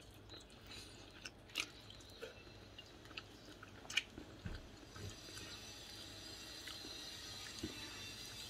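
Close-up eating sounds of chicken eaten by hand: chewing, with a few short sharp mouth clicks and smacks, one as she sucks her fingers about four seconds in.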